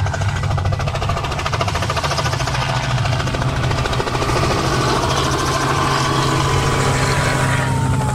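Robinson R44 helicopter flying a low pass: the fast, steady chop of its rotor over the engine's hum, with a whine that drops in pitch over the last few seconds as it goes by.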